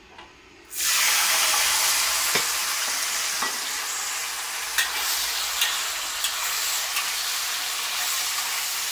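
Diced tau kwa (firm tofu) cubes dropping into hot oil in a wok: a loud sizzle starts suddenly less than a second in and keeps going, easing a little. A metal spatula stirring the cubes gives a few sharp clicks and scrapes against the wok.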